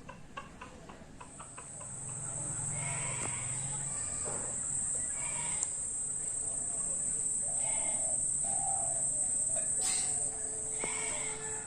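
A steady, high-pitched insect trill sets in about a second in and holds, with scattered short bird calls over it.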